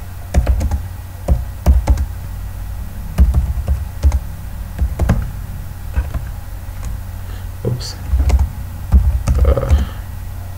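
Computer keyboard keystrokes: irregular clacks and taps in short runs as commands are typed, over a steady low hum.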